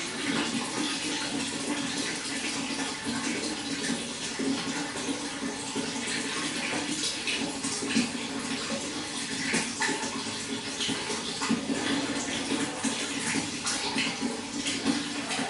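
Water running and splashing steadily, with many small irregular splashes.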